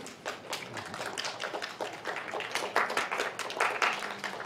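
Scattered applause from a lecture-hall audience: a dense, irregular run of claps.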